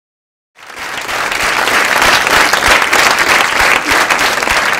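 Audience applauding, fading in about half a second in and holding steady.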